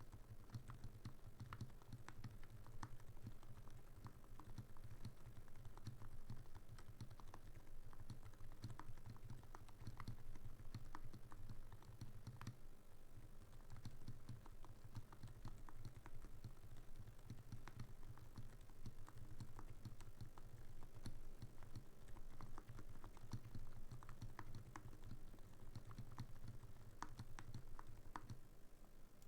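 Custom 60% keyboard being typed on: a Tofu60 Redux aluminium case with a brass internal weight, aluminium plate, AEBoards Raeds Hall-effect magnetic linear switches and CRP keycaps. It gives a continuous run of soft, quiet keystrokes, very quiet for a mechanical keyboard.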